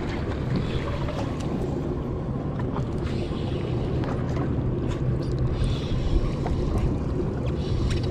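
Steady low hum of a boat's engine or onboard machinery, with wind on the microphone and a few faint ticks.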